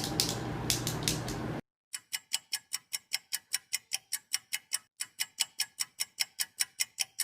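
Clock-ticking sound effect, even sharp ticks about three and a half a second, marking time passing in a time-skip gag. It starts about a second and a half in, after a sudden cut from faint room noise to silence.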